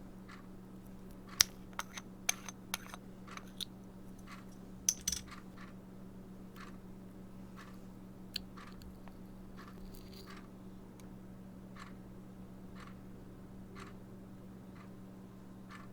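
A quick run of sharp clicks and small snaps in the first five seconds, with one more click near the middle. Over a steady low hum, a faint, even tick comes about once a second.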